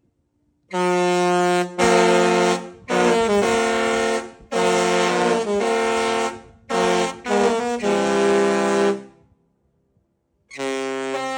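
Disney Wish-class cruise ship's musical horn playing a loud multi-note tune in several phrases, with short breaks between them, then starting a new phrase near the end.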